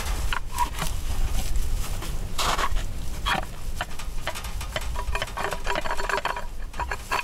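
A long-handled digging tool jabbing and scraping into dirt and dry grass in a series of uneven crunching strokes, with wind rumbling on the microphone.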